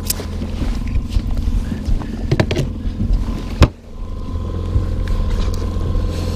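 Boat's outboard motor running steadily at trolling speed, a low drone, with clicks and knocks of a camera rig being handled close to the microphone; the loudest knock comes about three and a half seconds in, and the sound drops out briefly just after it.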